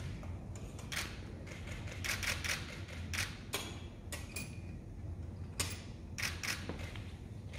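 Camera shutters clicking irregularly, about a dozen clicks, some in quick runs, over a low steady hum.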